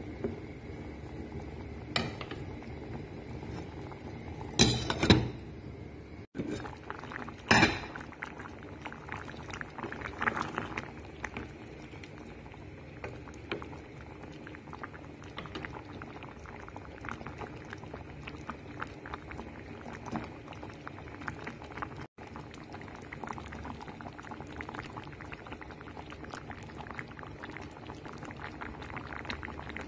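Pasta in tomato sauce simmering in a pot over low heat, a steady bubbling with many small pops as the sauce cooks the penne soft. A few louder noises stand out about five and eight seconds in.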